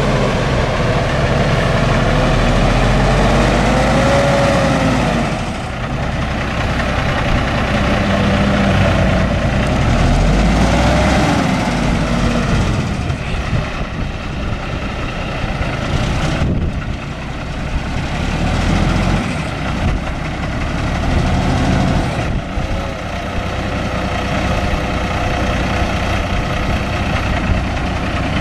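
Cummins ISX 14.9-litre inline-six diesel in a semi truck, running steadily. Its pitch rises and falls a few times as it is revved.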